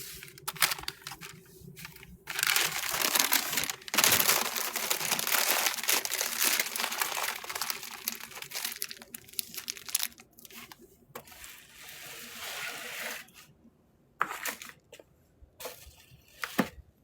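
Close crinkling and rustling handling noise, loudest from about two seconds in to about ten seconds, then fading into a few scattered clicks and taps.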